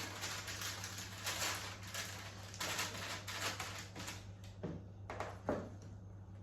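Cookie dough being scooped, scraped and dropped onto a baking tray: a run of short rustling scrapes, then a few separate light knocks in the second half, over a steady low hum.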